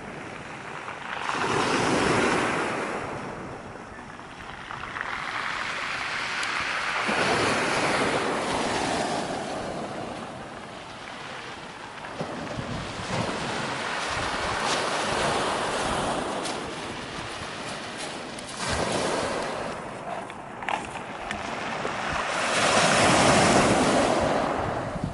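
Surf washing up a pebble beach and drawing back, the noise swelling and fading about every five seconds. Each backwash brings a crinkling rattle of pebbles rolled by the water.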